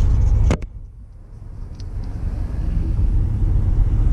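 Steady low rumble, broken by a sharp click about half a second in. The rumble then drops away and builds back up over the next couple of seconds.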